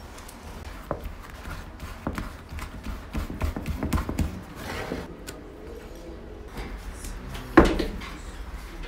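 Irregular knocks and thumps on a wooden work board as dough rounds are pressed and stacked by hand, with a louder thump near the end.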